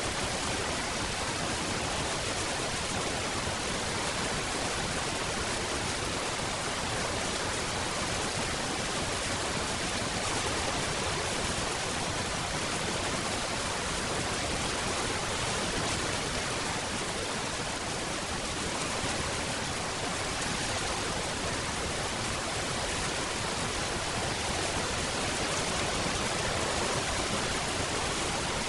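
Steady rainfall: a dense, even hiss without separate drops standing out, unchanging throughout.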